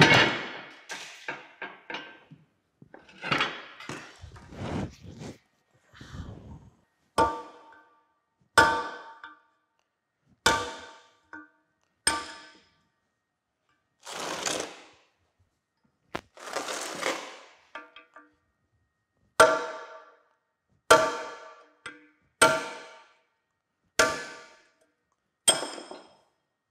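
Hammer striking a steel punch against a rust-seized bearing shell in a cast-iron cane mill frame: sharp metallic blows that ring, irregular at first, then regular about every second and a half near the end, with two longer rasping scrapes midway. The blows are meant to break the rust that binds the bearing shell in its cup.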